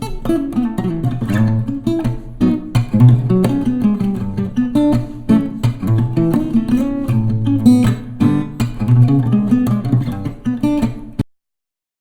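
Background music: strummed acoustic guitar, cutting off abruptly near the end.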